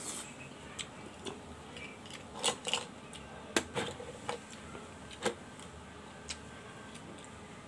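A person chewing a mouthful of boiled scallop, with a scatter of short, sharp mouth clicks and smacks, busiest in the middle.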